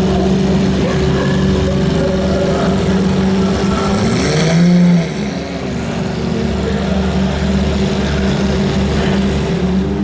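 Several supercar engines idling and moving off at low speed together. One engine's revs rise and fall near the middle, the loudest moment, before the sound drops suddenly.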